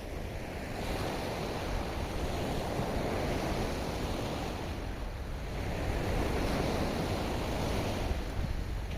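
Ocean waves breaking and washing in, swelling twice, with a low wind rumble on the microphone.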